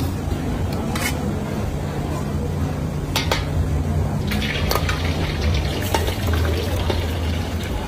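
Eggs poured from a bowl into a wok of deep, hot oil, sizzling and spattering about four to five seconds in. A few sharp clanks come from the metal wok spatula, over a steady low rumble.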